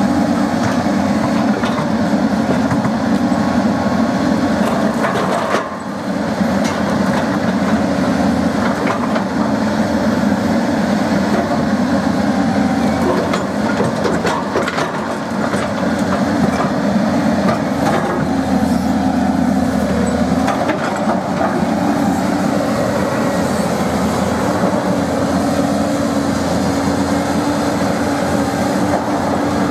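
A steady machine rumble with a constant low hum and scattered clicks and knocks, dipping briefly about six seconds in.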